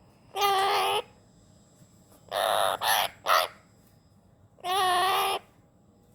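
Hahn's macaw giving loud, harsh, pitched calls: one about half a second in, another around two and a half seconds followed by two quick short calls, and a third near five seconds.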